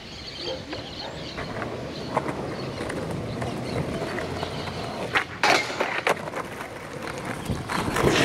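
Skateboard wheels rolling over rough concrete, then several sharp clacks of the board hitting the ground about five seconds in, the loudest among them, and more knocks near the end as the board passes close by.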